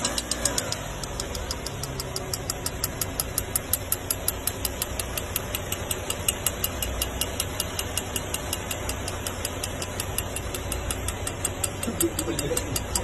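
Car engine running just after start-up with a loud, steady, rhythmic knock, several sharp knocks a second over the engine's rumble.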